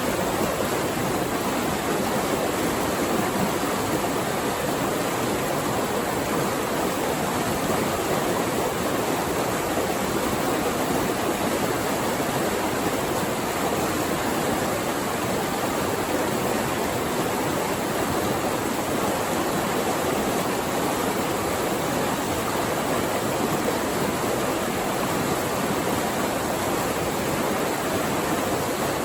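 Flowing water rushing steadily, with no breaks or changes.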